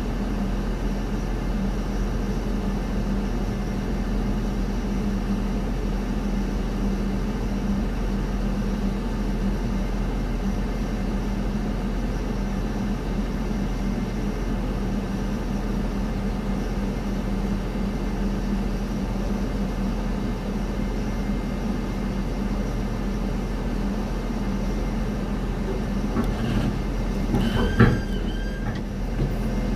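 Steady low drone of ramp machinery around a parked Boeing 787-9 before pushback, with a brief knock and short ringing tones near the end.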